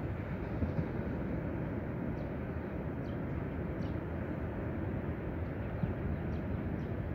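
Steady rush of ocean surf on a beach, heaviest in the low end, with faint short high chirps a few times.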